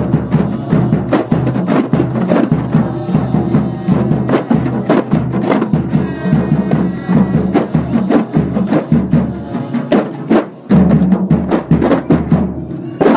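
Kompang frame drums struck by hand in dense interlocking rhythms, with deep thumps from a large bass drum. About ten and a half seconds in the playing dips briefly, then comes back louder.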